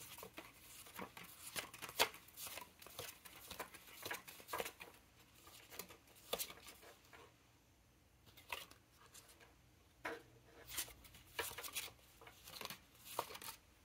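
Paper ink swatch cards on a binder ring being flipped through one after another: a run of irregular light flicks and taps, with a lull of a couple of seconds about halfway.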